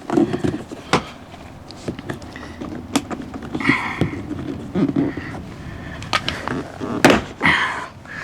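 Plastic retaining clips of a Tesla Model 3 door trim panel clicking and snapping as the panel is pried and pulled away from the door, with knocks and scraping of the plastic panel; the clips hold very hard. Several sharp clicks stand out, the loudest about seven seconds in.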